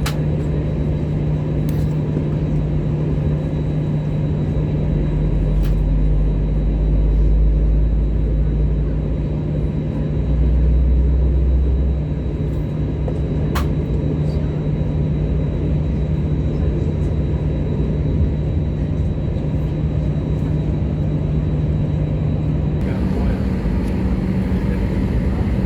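Steady engine and air-system hum inside an Airbus A321 cabin on the ground before takeoff, with a constant low drone and a deeper rumble that swells twice in the first half. A single sharp click about halfway through.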